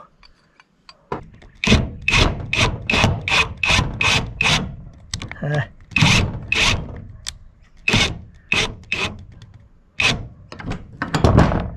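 Cordless driver sinking a large screw through an aluminium mounting bracket into a corrugated metal roof, run in short grinding bursts: about two or three a second at first, then more spaced out as the screw goes in.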